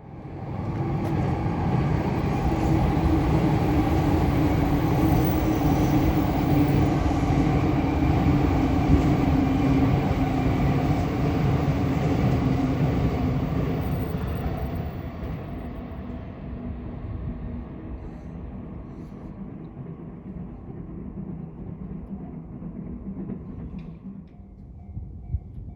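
A train running past at close range, loud for roughly the first fourteen seconds and then fading steadily as it draws away.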